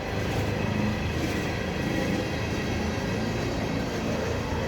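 Empty ethanol tank cars of a long freight train rolling slowly past on the rails: a steady noise of wheels on track.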